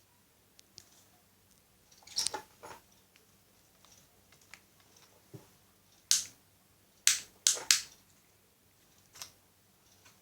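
Niko FC-06-600 mini ceiling fan running with a faint low hum, broken by sharp, irregular clicks, the loudest a cluster of four about six to eight seconds in: the fan's hiccup.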